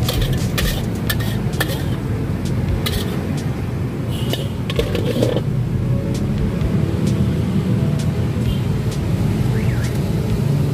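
Clinks and taps of utensils and dishes at a street food cart, scattered sharp clicks over a steady low rumble of street background.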